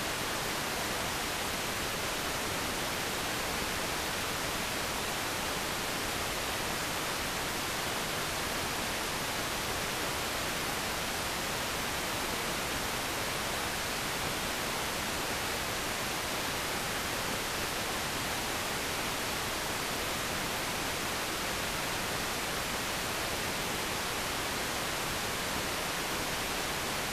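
Steady, unchanging hiss of static on an analog TV channel's audio, with no program sound or test tone: the dead air of the channel after its sign-off.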